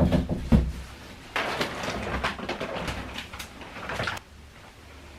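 Mattress packaging being handled while the mattress is unpacked. A couple of low thumps are followed by a few seconds of rustling and scraping that stop abruptly near the end.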